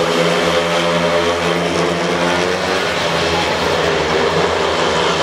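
A pack of four speedway bikes, 500 cc single-cylinder methanol-fuelled engines, running flat out in a race, making a loud, steady engine drone whose pitch wavers slightly as the riders work the throttles.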